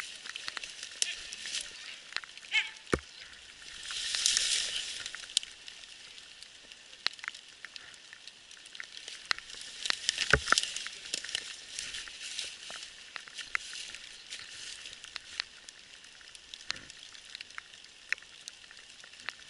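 Dry fallen leaves and twigs on a forest floor crackling and rustling as they are disturbed. There are many small snaps, a louder stretch of rustling about four seconds in, and a couple of sharper knocks or twig cracks.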